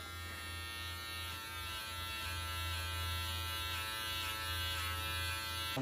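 Electric hair clippers buzzing steadily as they cut hair at the back of a man's neck.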